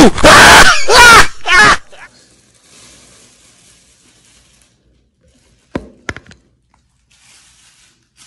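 A person's voice: three loud wordless cries in quick succession in the first two seconds, then two short sharp sounds about six seconds in.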